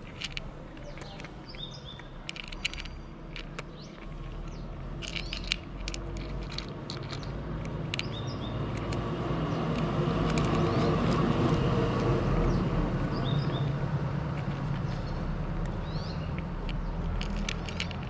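A vehicle passing along the street, its rumble building to its loudest about halfway through and then easing off. A cat crunches dry kibble in sharp clicks near the start and again near the end, and a few short bird chirps come through.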